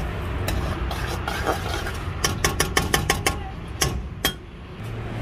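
Metal spatula clinking and scraping against a steel wok as noodles are stirred, with a quick run of six or seven clinks in the middle and a few single knocks either side. A low steady rumble runs underneath.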